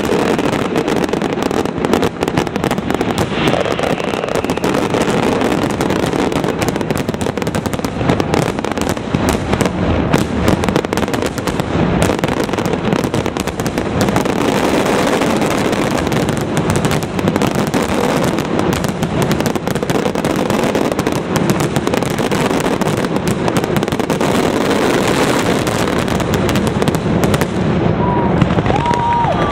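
A dense, unbroken barrage of aerial firework shells bursting, the bangs overlapping so closely that they blend into one continuous din.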